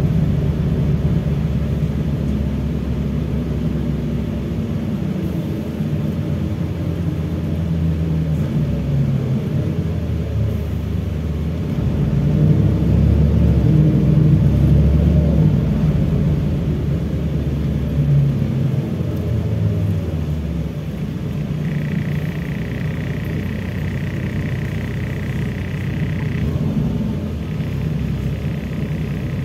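LiAZ-5293.54 low-floor city bus heard from inside the passenger cabin while moving: a steady low engine drone that grows louder about twelve seconds in, then settles. Near the end a steady high tone sounds for about five seconds, breaks off briefly, and comes back.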